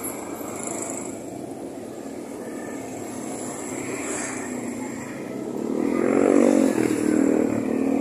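Street traffic with motorcycle engines going by; it grows louder from a little past halfway, when a motorcycle passes close.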